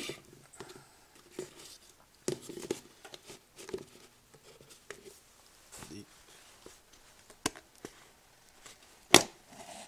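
Scattered faint clicks, taps and rustles of hands handling spice containers and utensils in a small kitchen, with one sharp click near the end.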